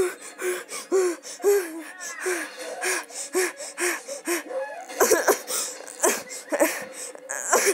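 A person's voice making short, breathy, pitched bursts over and over, about two a second, with a louder stretch around five seconds in.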